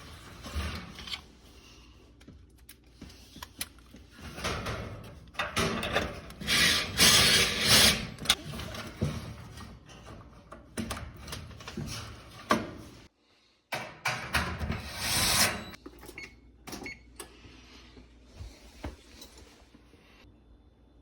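Irregular scraping, rubbing and knocks of hand work on metal gas-oven parts while a worn igniter is being replaced, with the sound cutting out for a moment about two-thirds of the way through.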